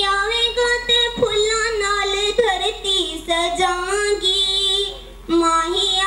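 A girl singing into a handheld microphone, in long held, wavering notes, breaking off briefly about five seconds in.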